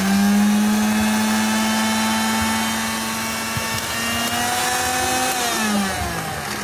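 Panasonic MX-AC 400 mixer grinder's motor spinning up, running at a steady high speed, then winding down about five and a half seconds in as it is switched off.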